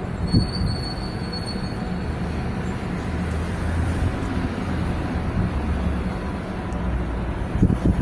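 Steady low rumble with a light hiss, and a thin high whistle lasting about a second near the start; a couple of low knocks near the end.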